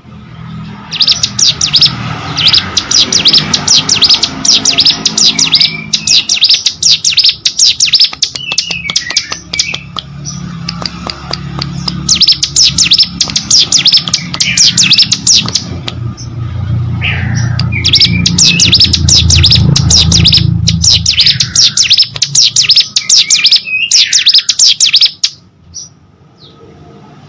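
Ciblek gunung, a prinia, singing hard in long bursts of rapid, scratchy chattering notes broken by short falling whistles, the bursts separated by brief pauses.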